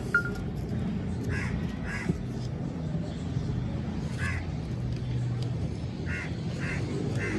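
Harsh bird calls, heard several times in short groups, over a steady low hum.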